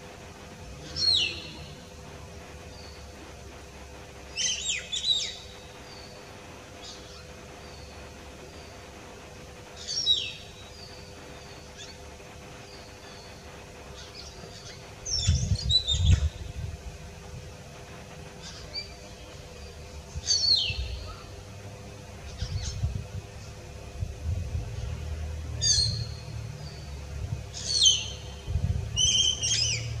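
Common hill myna calling: loud, sharp whistled calls that drop steeply in pitch, given singly or in quick pairs every few seconds, with softer notes between them. A low rumble comes in about halfway through.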